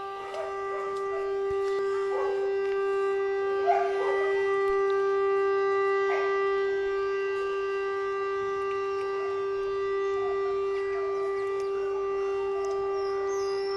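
Civil-defence siren sounding one long, steady, unchanging tone: the 17:00 commemorative siren marking the outbreak of the Warsaw Uprising. A few short, faint sounds come through beneath it in the first several seconds.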